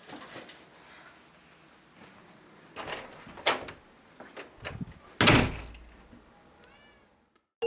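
An interior door slams shut about five seconds in, a sharp bang with a low thud that dies away quickly. A few lighter knocks and clicks come before it.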